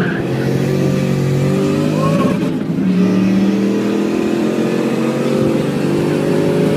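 Turbocharged 2009 Mustang GT's 4.6-litre V8 heard from inside the cabin under acceleration, its pitch climbing slowly, with a short break about two and a half seconds in.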